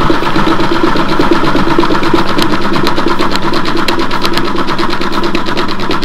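Washing machine drum spinning fast in its spin cycle, heard from a camera riding inside the drum: a loud, steady whir with rapid, evenly spaced rattling clicks.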